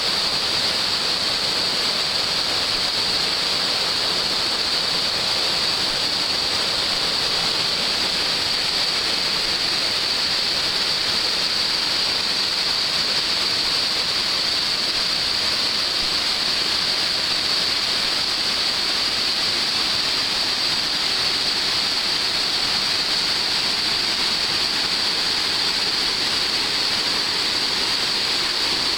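River rapids and waterfall, white water rushing over rocks just below: a steady, unbroken rush.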